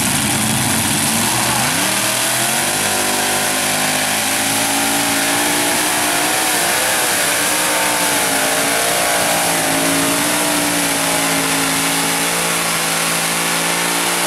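Modified pulling tractor's engines at full throttle: they rev up steeply about two seconds in as the pull begins, then hold at high revs, the pitch wavering as the tractor drags the weight-transfer sled down the track.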